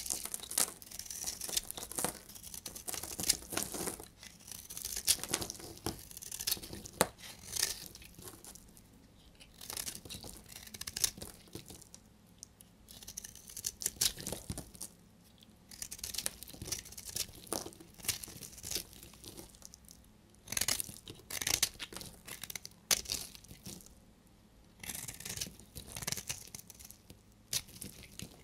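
A utility-knife blade carving shavings off a hard, dried-out bar of pink soap: crisp scraping and crackling as the chips break away, in bursts of a few seconds separated by short pauses.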